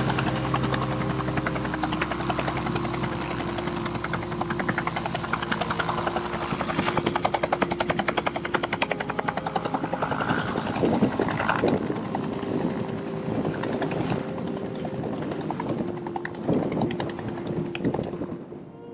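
Bell military helicopter's two-bladed main rotor beating in rapid, even pulses over a steady turbine tone, loudest a little before halfway, then fading near the end.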